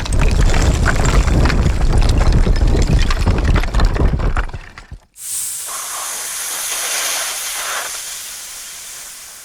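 Two sound-library effects played back to back. First a loud crackling, rumbling noise that stops abruptly about five seconds in, then a high hiss that slowly fades away.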